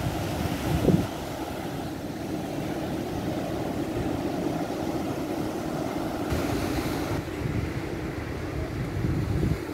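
Wind buffeting the microphone in gusts, strongest about a second in and near the end, over a steady wash of sea surf.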